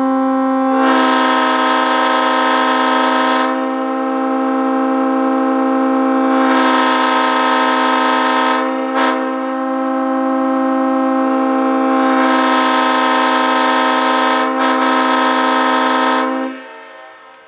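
Multi-chime locomotive air horn blowing one long steady chord, swelling louder with a rush of air three times. It cuts off and fades about a second before the end.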